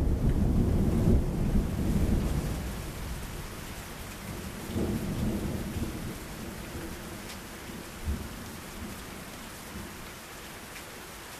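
Thunder rumbling and fading over steady rain, with a second, softer rumble about five seconds in and a brief thump about eight seconds in; by the end only the rain is left.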